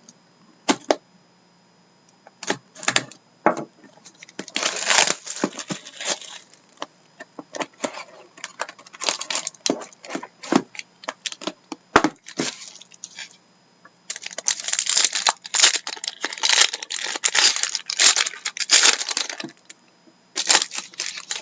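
Plastic wrapping and card packaging on a sealed trading-card hobby box being torn open and crinkled: sharp crackles and clicks, with dense spells about four to six seconds in and again from about fourteen to nineteen seconds.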